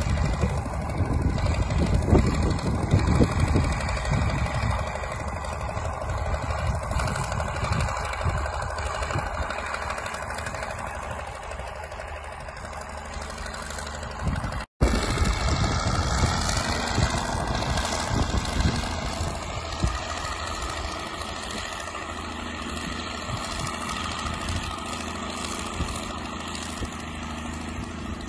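Diesel engine of a crawler tractor running under load as it pulls a train of loaded freight sleighs through snow, loudest at first and fading as it moves off. After an abrupt cut about halfway through, an engine runs steadily.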